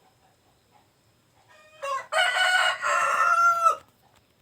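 A rooster crows once about two seconds in, one long loud call that drops in pitch at its end.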